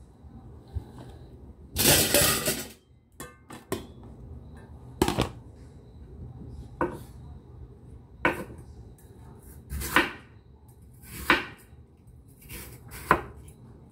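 Cleaver slicing raw peeled lotus root on a wooden cutting board: six sharp chops about one and a half seconds apart, each a blade going through the root onto the board. A louder, longer noise about two seconds in.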